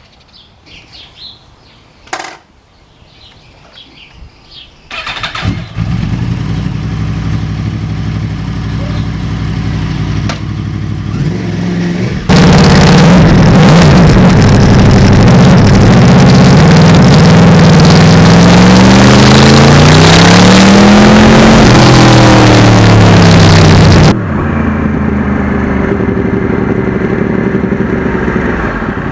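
Yamaha R1 crossplane inline-four motorcycle engine starting about five seconds in and idling. From about twelve seconds it is much louder, with the revs rising and falling, then it drops back to a steady run near the end.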